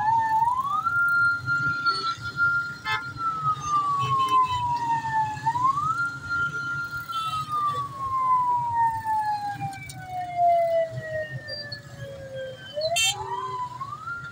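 A vehicle siren wailing in slow cycles: a quick rise to a held high note, then a long slow fall, three times over, above the steady rumble of a large crowd and traffic.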